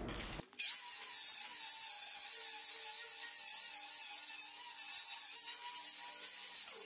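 Angle grinder grinding the freshly plasma-cut edge of steel plate to clean it up: a steady hiss with a faint motor whine, starting about half a second in.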